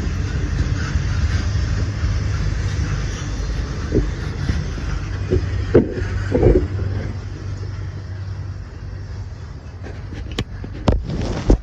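Freight train rolling past with a low rumble that fades away, with a few sharp knocks near the end.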